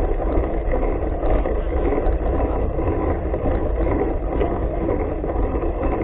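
Steady wind rumble on the microphone with tyre noise from a mountain bike's knobby tyre rolling on asphalt.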